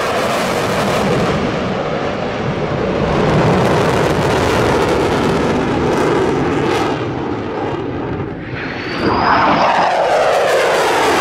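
Jet noise from an F-22 Raptor's twin turbofan engines as it flies, a loud continuous rush. Near the end it swells again, and its pitch sweeps downward as the jet passes by.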